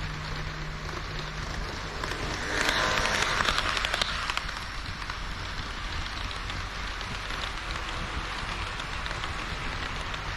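HO scale model train running on the layout track: a steady rattling hiss of wheels on rail with dense fine clicks. It grows louder for about two seconds around three seconds in, then settles back.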